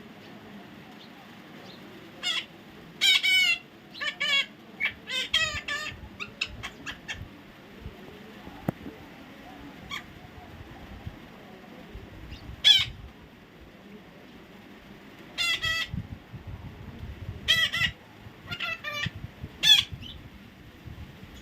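Parrot giving short, harsh squawks in clusters, with pauses of a few seconds between groups.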